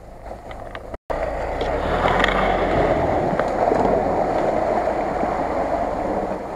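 An off-road 4x4 driving through a water-filled mud pit: its engine running under load, with muddy water sloshing and splashing around the wheels. The sound drops out briefly about a second in, then comes back louder.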